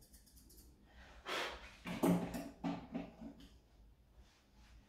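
Poodle snorting and snuffling: a run of short breathy snorts, starting about a second in and ending before the last second.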